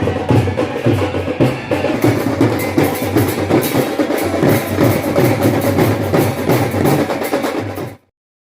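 Drum-led music with a fast, regular percussion beat, cutting off suddenly near the end.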